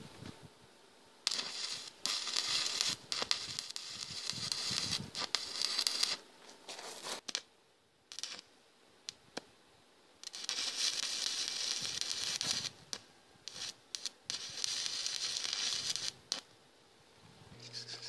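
Stick (arc) welding on a cast-iron pump housing with cast-iron electrodes: the arc crackles and hisses in two runs of about six seconds each, with a few sharp ticks between.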